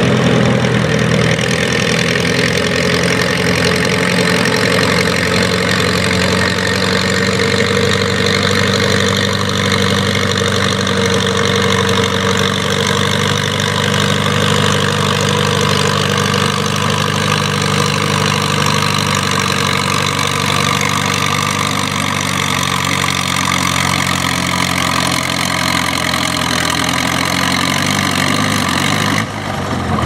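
Case farm tractor's engine running under load as it pulls a weight-transfer sled, its note holding fairly steady and then sagging near the end as the pull slows.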